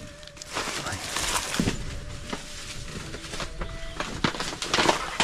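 A knife chopping at young banana stalks: several sharp cutting strikes amid the rustle of dry banana leaves.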